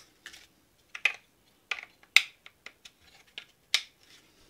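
Irregular sharp clicks and clacks of Glock 17 pistol parts being handled and fitted back together, about eight in all, the loudest about two seconds in.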